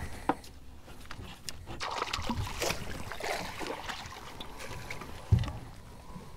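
Knocks and water noise on a small fishing boat: scattered clicks and knocks, a stretch of splashing-like noise in the middle, and a heavy thump about five seconds in.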